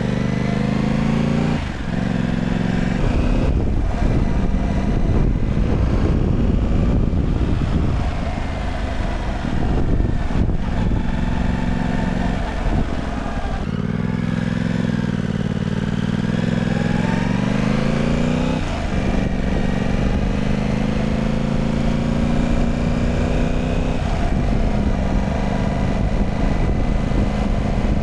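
Yamaha R7's parallel-twin engine breathing through a new aftermarket slip-on exhaust, heard while the bike is ridden. Its pitch climbs steadily under throttle and drops sharply several times, with a steady low rumble underneath.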